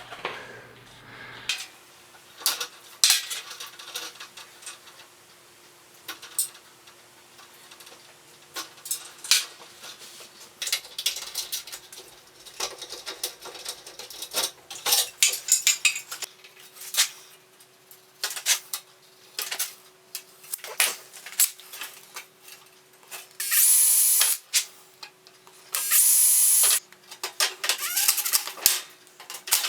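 Scattered clicks, knocks and rattles of hardware and tools being handled while an LED shop light fixture is mounted, with two short runs of a power drill near the end.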